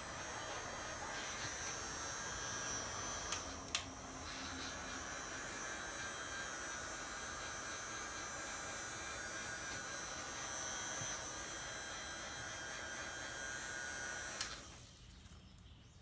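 Handheld heat gun running steadily, its fan motor blowing hot air to shrink heat-shrink tubing over a bullet connector. It is switched off and stops abruptly near the end. Two sharp clicks come a few seconds in.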